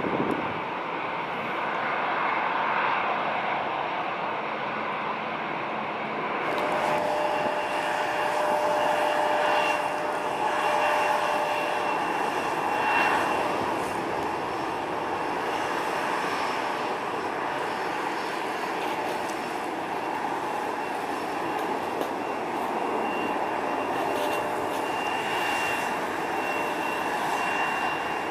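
Airliner jet engines running on the runway: for the first few seconds a Delta Airbus narrowbody's engines, then a Bombardier CRJ-900's rear-mounted turbofans rolling past with a steady high whine over a continuous rush, loudest a third of the way through.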